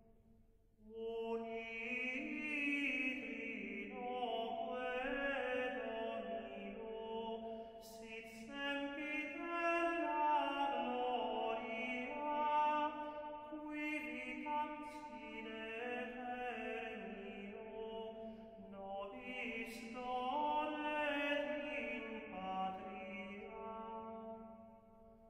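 Gregorian chant: unaccompanied voices singing one slow melodic line. A phrase begins about a second in and dies away just before the end.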